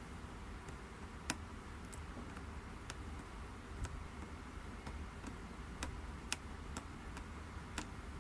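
Faint, irregular small clicks and ticks of a soldering iron tip being drawn along the fine pins of a surface-mount CPU chip during drag soldering, over a low steady hum.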